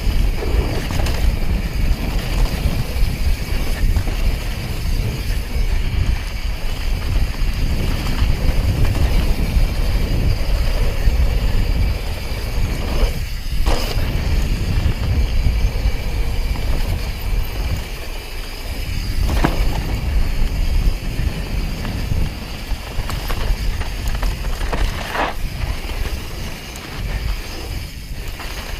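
Wind rushing over the microphone and tyres rumbling on a dirt trail as a downhill mountain bike rides at speed, with a few sharp knocks from the bike.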